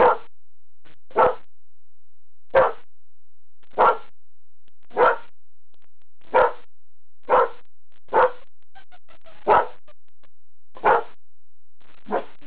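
A dog barking steadily, one short bark at a time, about once a second, eleven or so in an even rhythm.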